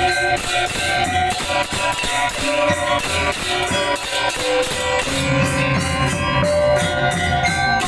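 Balinese gong kebyar gamelan playing: bronze metallophones ringing in a dense rhythm over drums and small cymbals. Lower-pitched instruments come in strongly about five seconds in.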